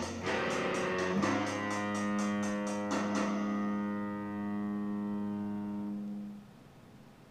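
Electric bass guitar played through an amp over a steady ticking beat of about four ticks a second. The beat stops about three seconds in while a last low note rings on, then cuts off about six seconds in.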